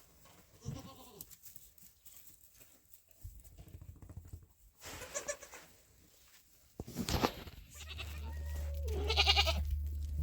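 Goats bleating: several separate calls, the highest-pitched and loudest near the end. A steady low hum comes in about eight seconds in.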